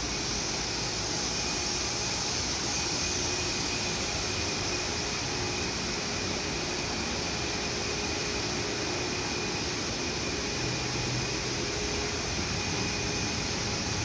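Steady, even machine hiss with a faint constant hum running underneath, holding the same level throughout.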